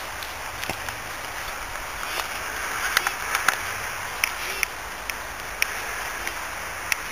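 Steady hiss of outdoor background noise, with a scattering of short sharp clicks from about three seconds in.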